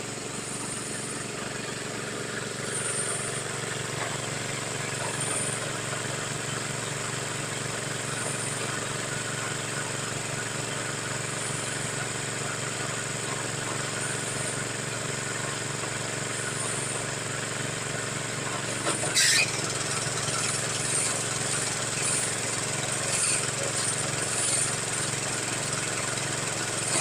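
Engine of a water-well drilling machine running steadily, with one sharp knock about two-thirds of the way through.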